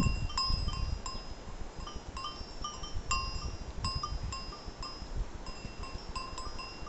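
Bells on grazing goats' collars clinking irregularly, a few short rings a second, all at the same pitch, over a low rumble.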